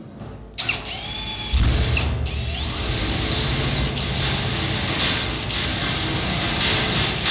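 Cordless drill boring into stainless steel sheet with a hand-sharpened twist bit: a brief high squeal as the bit first bites, then a steady grinding run under full pressure until it stops at the end.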